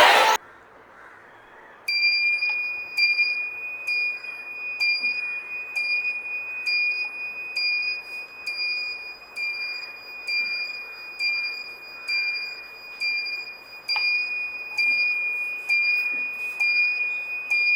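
Background music cuts off right at the start; about two seconds later a homemade bicycle indicator sound-effect circuit starts playing a high electronic tone that pulses in a repeating chime-like pattern about twice a second.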